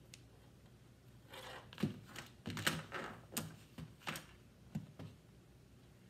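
Irregular light clicks and knocks, about a dozen over three or four seconds, as a hot glue gun is set back in its stand and a small wooden board and a strip of magnet are handled on a tabletop.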